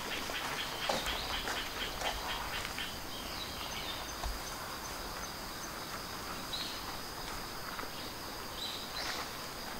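Steady chirring of insects in the background, with soft steps on a sandy, gravelly ground as a run of small crunches in the first three seconds, and a few short bird chirps in the second half.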